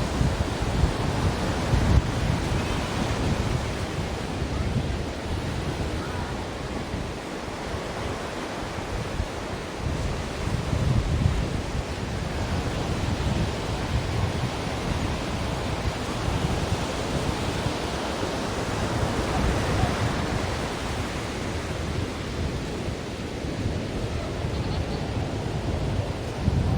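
Ocean surf: waves breaking and washing ashore in a continuous hiss, swelling and easing every several seconds.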